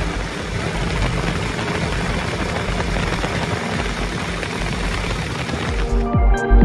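Motorcycle engine running on the move under a steady rush of noise. About six seconds in, electronic music cuts in.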